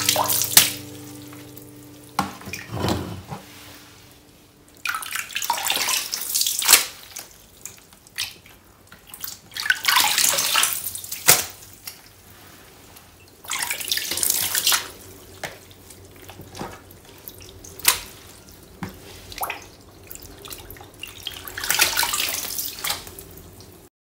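Water splashing and dripping as wet, tied-up T-shirts are worked by hand in a plastic storage case full of water, in irregular bursts a second or two long with small clicks and drips between them.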